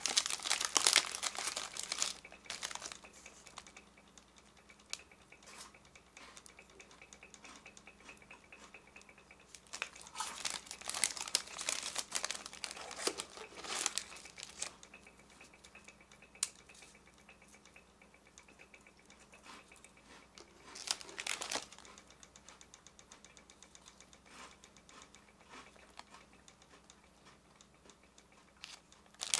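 Thin plastic wrapper of a chocolate-cream wafer stick pack crinkling as it is handled, in several loud bursts at the start, again from about ten to fourteen seconds in and briefly around twenty-one seconds, with softer rustling between.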